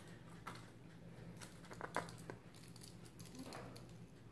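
Faint scattered taps and clicks of a plastic measuring scoop against a plastic fruit-infuser basket as berries are tipped and shaken into it, the sharpest click about two seconds in, over a low steady hum.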